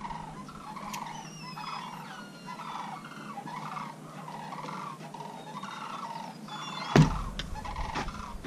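Chickens calling in a run of short repeated calls, with small birds chirping high above them; a sharp knock about seven seconds in.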